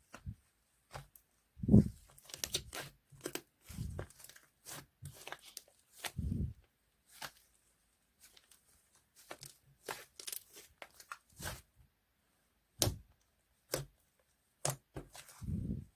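Slime being squished and pulled by hand, making irregular crackling, popping sounds with a few dull thumps.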